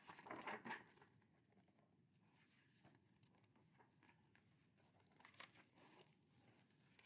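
Mostly near silence, with a brief papery rustle of a picture book being handled in the first second and a couple of faint rustles near the end.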